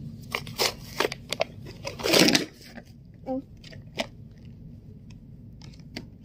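Plastic blister packaging crackling and its cardboard backing being torn open by hand, with one longer, louder rip about two seconds in, then a few scattered clicks of plastic.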